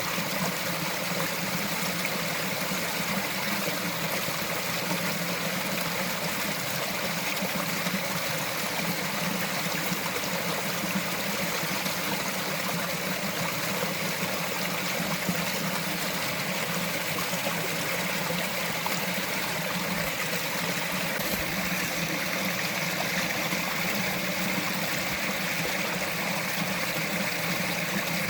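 A small mountain stream flowing over rocks, a steady trickling and babbling of water.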